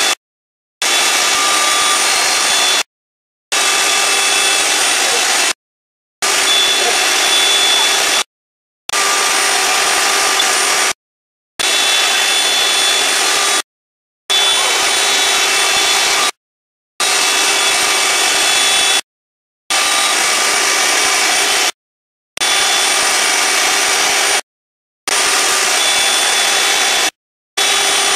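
CNC gantry router's spindle running with a 1/4-inch upspiral bit as it cuts along a slot at a slow feed, a steady loud whine with several held tones over a rushing noise. The sound cuts out to dead silence for about half a second every two to three seconds.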